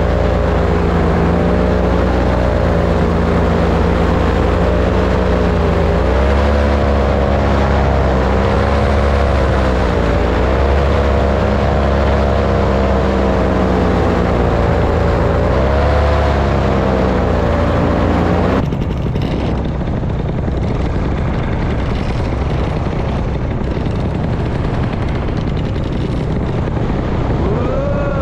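Paramotor's two-stroke engine and propeller running in flight, its pitch rising and falling as the throttle changes. About two-thirds of the way through the sound cuts abruptly to a steady rush of wind, with a falling tone near the end.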